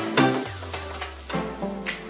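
Background music with a steady beat, plucked notes and a held bass note.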